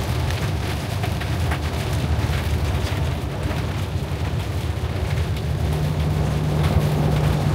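Inside a moving vehicle: steady engine and road rumble, with scattered light taps of raindrops on the windshield. A steady low hum joins the rumble about five seconds in.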